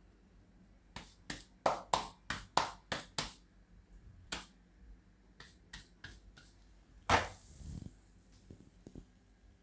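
Hands patting jowar (sorghum) dough into a rotlo flatbread between the palms: a run of quick, sharp slaps about three a second, then a few fainter pats. Near the end comes one louder slap as the rotlo is laid on the clay griddle.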